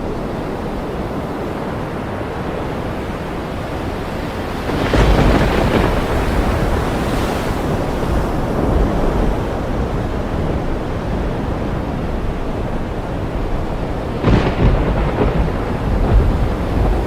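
Thunderstorm over ocean surf: a steady rush of rain and waves, with two rolls of thunder, about five seconds in and again near the end.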